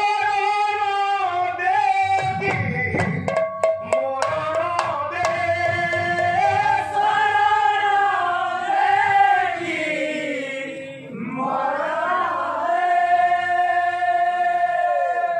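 A man singing a devotional kirtan line in long, wavering held notes, with a few sharp percussion strokes a couple of seconds in. The singing dips briefly about two-thirds of the way through, then resumes.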